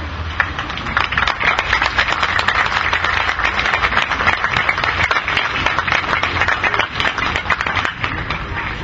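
Audience applauding: dense clapping that swells about a second in and thins out near the end, over a low steady hum.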